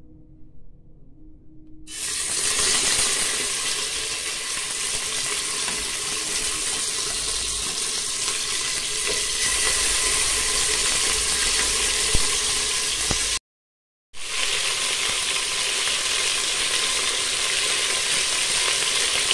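Marinated oxtail pieces sizzling as they hit a hot pressure-cooker pot to brown, starting about two seconds in and cutting out briefly about two-thirds through.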